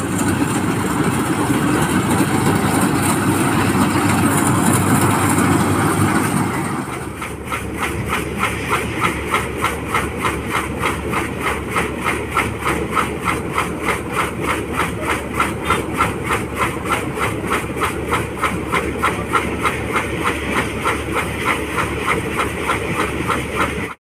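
Rice combine harvester running: a loud, dense mechanical din while it cuts. About seven seconds in, this gives way to a steady machine sound with a regular pulsing about two or three times a second while its unloading auger pours threshed grain into sacks.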